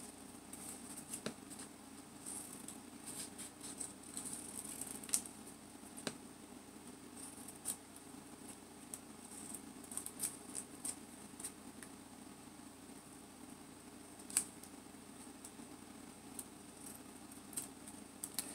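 Small scissors snipping through envelope paper: scattered short, sharp snips with light paper rustling as the paper is turned, over a faint steady hum.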